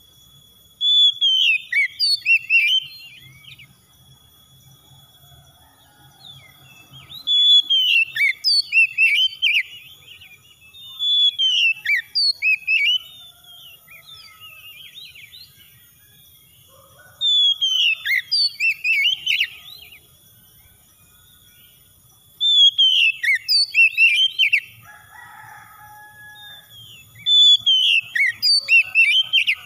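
Oriental magpie-robin singing: six short phrases of varied, rapid whistles and trills, each about two seconds long and a few seconds apart.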